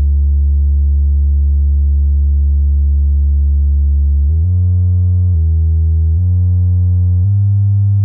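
Soundstream USB-10P under-seat powered subwoofer, a 10-inch driver with two passive radiators, playing a loud steady low bass test tone. About four seconds in it moves to a run of different low notes, changing roughly once a second.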